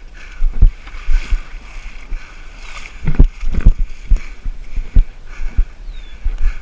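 A runner's footsteps thudding through a body-worn action camera, irregular low thumps about twice a second, over a steady rush of wind and movement noise.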